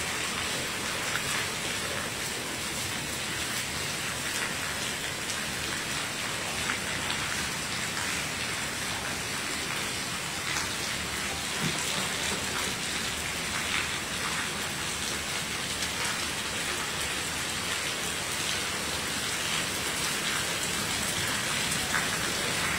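Hard rain falling on a flat concrete rooftop: a steady, even hiss with the patter of drops splashing on the wet surface.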